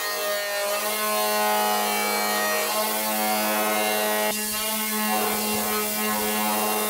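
Electric abrasive power tool running against the refrigerator's sheet metal, stripping paint and rust, with a steady motor hum under a shifting grinding whine that changes about four seconds in as the load on the tool shifts.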